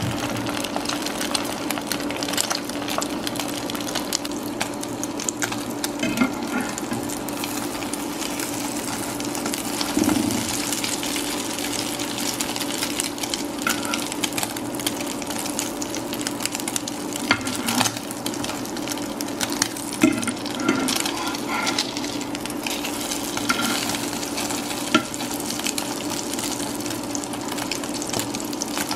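Egg and glass-noodle patty frying in hot oil in a non-stick pan, a steady sizzle with a low hum underneath. Several sharp scrapes and taps of a slotted spatula come as the patty is folded and turned.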